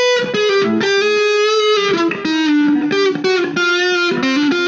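Electric guitar played through a Mooer GE100 multi-effects pedal on a distorted blues preset: a loud single-note lead line of sustained notes that steps down in pitch and back up. The pedal's noise gate is switched on, and no hum is heard behind the playing.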